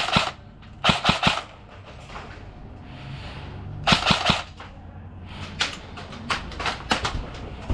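Airsoft guns firing: short rapid bursts of several shots at the start, about a second in and about four seconds in, then a string of single shots.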